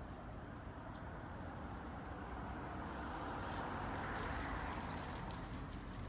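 Light, quick clicking from a lamb moving along in its wheeled cart over a steady rushing noise that swells to a peak about four seconds in and then eases.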